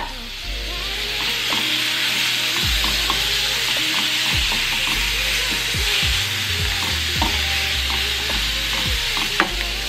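Seasoned chicken pieces sizzling steadily as they brown in a nonstick frying pan, stirred and turned with a wooden spoon that scrapes and taps against the pan now and then.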